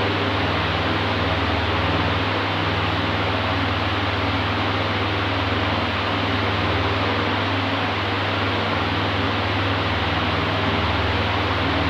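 Electric oscillating fan running steadily: an even rush of air over a constant low hum.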